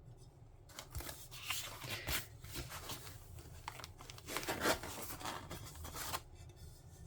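Packaging rustling and crinkling as a small stained glass sheet is unwrapped, with a couple of soft knocks about a second and two seconds in.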